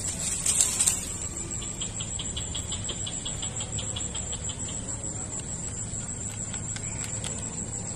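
Crickets or other insects droning steadily at a high pitch, with a run of quick regular chirps, about five a second, for a few seconds. A brief rustle comes about half a second in, as the fishing pole is swung out.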